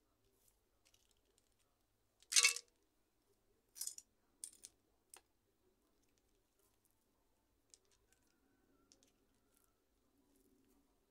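Handling noises from repotting a plant: four brief scrapes or rustles, the loudest about two seconds in, then only faint scattered clicks.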